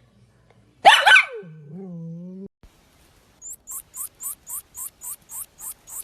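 A dog barks, a loud double bark about a second in, followed by a low drawn-out sound lasting about a second. In the second half comes a quick, even run of short high chirps, about four a second.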